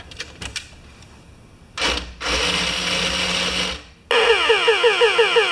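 Small electric motors and gearing of a scale model electric fire truck running in two spells as its steering and drive are tested: first a steady whir for about two seconds, then, after a brief pause, a rhythmic gear chatter pulsing about six times a second.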